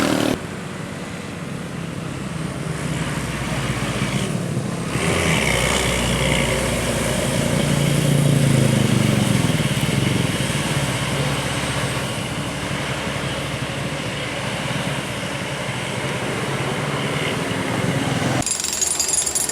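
Large tour bus's diesel engine running as it drives past, the engine note swelling about eight to ten seconds in.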